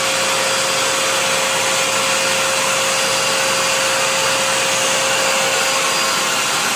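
Vacuum cleaner running steadily as it is pushed around the floor, with a steady whine over its rushing noise. The sound comes in suddenly loud at the start, and the whine fades out near the end.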